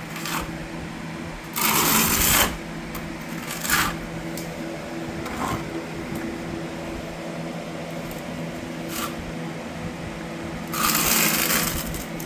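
Notched trowel scraping through thinset mortar, two longer strokes about two seconds in and near the end, with a few short scrapes between. A steady low hum runs underneath.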